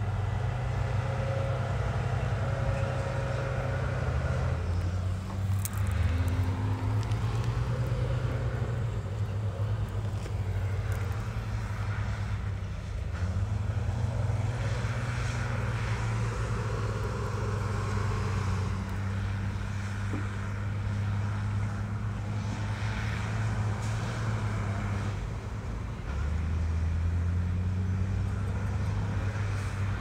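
Heavy diesel engines of dump trucks and bulldozers running under load, the engine note stepping up and down several times as they rev and ease off.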